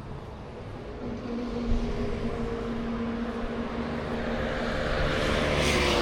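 An engine humming steadily as it passes, growing louder toward the end with a slight dip in pitch.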